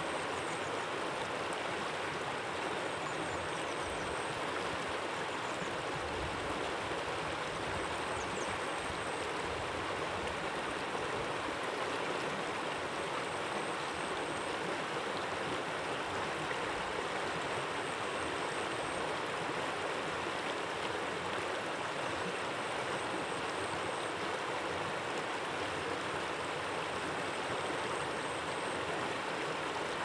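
Small stream of water running steadily among rocks.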